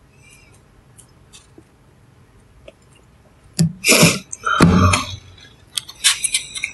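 A person's breathy vocal noises close to the microphone: two short, loud bursts about four seconds in, then a patter of small clicks near the end.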